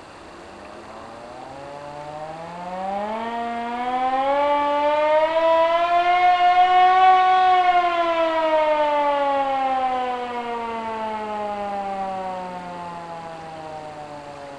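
Hand-cranked air raid siren made by Carter Nelson, wound up and let run down. Its wail climbs in small steps to a peak about halfway through, then falls in one long, even slide as the rotor slows.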